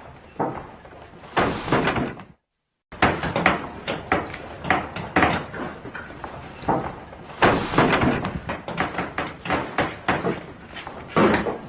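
Carpentry workshop ambience: irregular wooden knocks, thuds and clatter, like boards and hand tools being handled and struck, with a few longer scraping strokes. The sound cuts out briefly to silence a couple of seconds in.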